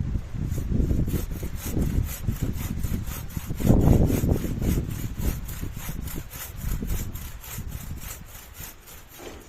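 Hand saw cutting wood in quick, even strokes, about four a second, over the low rumble of strong wind on the microphone.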